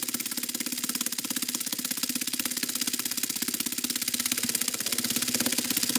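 Small electric air pump on the valve of an Exped AirMat sleeping mat, running steadily with a fast, even buzz as it inflates the mat.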